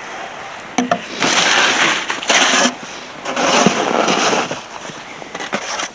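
A snow shovel scraping and crunching into packed snow drift, three strokes in a row with a short knock just before them.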